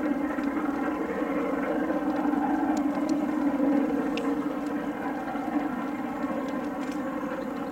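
Steam locomotive LMS Royal Scot 46115 "Scots Guardsman" working hard in the distance, heard as a steady drone.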